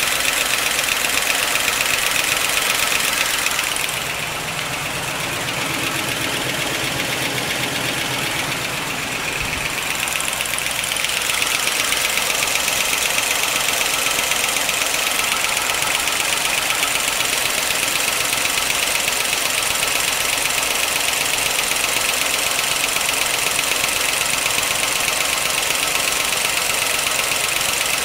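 1955 Pontiac Chieftain's V8 running steadily at idle with its valve covers off, the rocker arms working in the open, on fresh 10W-40 oil with Marvel Mystery Oil added to test whether it runs quieter.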